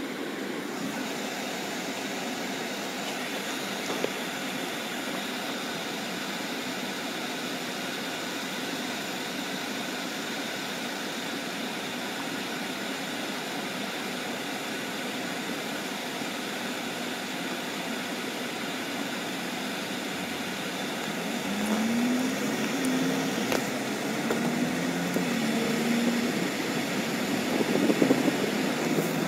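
Steady hum of engine, road and air-conditioning noise inside a moving car's cabin. It gets louder for the last several seconds, with a pitched sound rising and falling over it.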